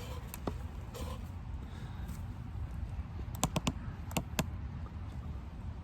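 Square spine of a fixed-blade knife scraping wood, heard as short, sharp clicks and scrapes: a quick run of strokes about three and a half seconds in and two more a moment later.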